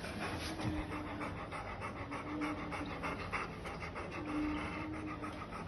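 A Labrador panting rapidly and evenly, breath after breath: the laboured gasping of a dog in congestive heart failure from dilated cardiomyopathy.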